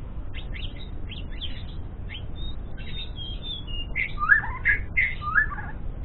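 White-rumped shama (murai batu Medan), a young bird practising its song: a run of short high chirps, then louder whistled phrases with falling notes from about four seconds in.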